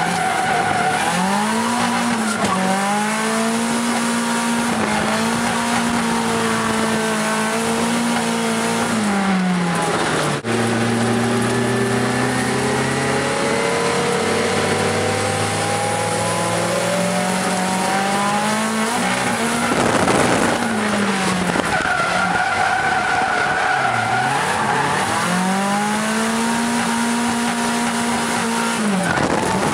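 SR20DET turbocharged four-cylinder in an AE86 Trueno drift car, heard from inside the cabin. The revs are held high and steady for several seconds at a time, then fall and climb again, with a sudden brief cut about ten seconds in. Tyres squeal through the slides.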